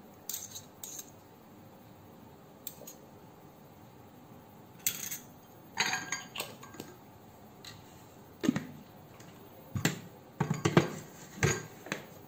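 Kitchen handling sounds: metal spoons clinking against a glass bowl and a plastic blender jug, with a few scattered clicks at first and louder knocks in the second half as the blender jug and its base are handled on the table.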